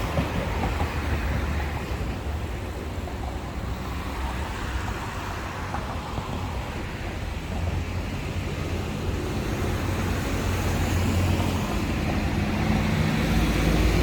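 Street traffic: a continuous rumble of passing cars and other road vehicles, with an engine hum growing louder near the end.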